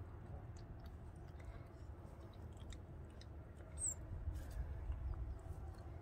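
Faint mouthing and scuffling of four-week-old Great Pyrenees/Maremma puppies play-wrestling and chewing on each other: scattered soft clicks over a steady low rumble, with a brief high chirp about four seconds in.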